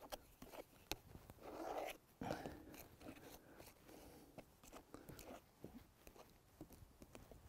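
Faint wet squishing and scraping of paint-laden gel being worked across a canvas, broken by a few light clicks.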